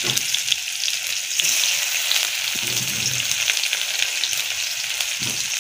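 Chopped onion frying in a little hot oil in a steel karahi: a steady sizzling hiss with many small scattered crackles.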